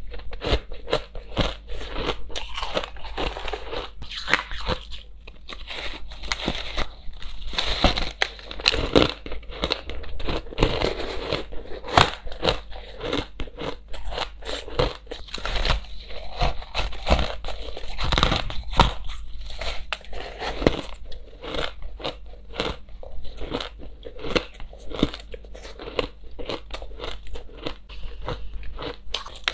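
Crushed ice being chewed close to the microphone: a dense, irregular run of crisp crunches and cracks.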